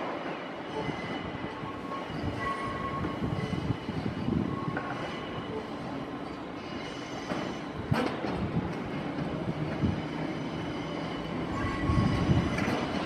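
Merseyrail Class 508 electric multiple unit rolling slowly over pointwork into the station. The wheels squeal in short high tones on the curves over a running rumble, with clicks and one sharp knock about two-thirds through as the wheels cross rail joints and points.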